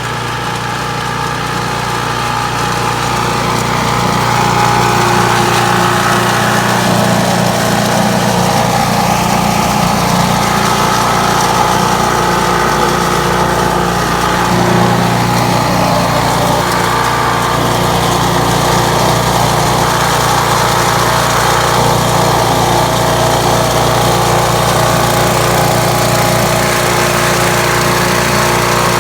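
Petrol MTD Yardman garden leaf vacuum running steadily, its small engine growing louder over the first few seconds and then holding level.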